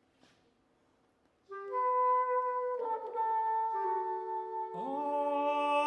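Near silence for about a second and a half, then the wind instruments of a chamber ensemble come in with held notes, further instruments entering one after another to build a sustained chord.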